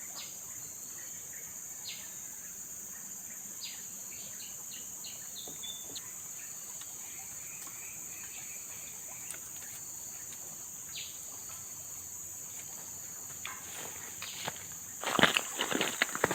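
Steady high-pitched drone of a rainforest insect chorus, with scattered short chirps. Near the end comes a cluster of loud sharp knocks and rustles.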